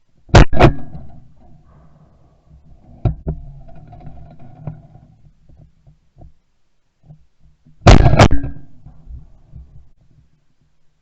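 Shotgun firing at doves: two loud blasts in quick succession about half a second in, then another close pair about eight seconds in.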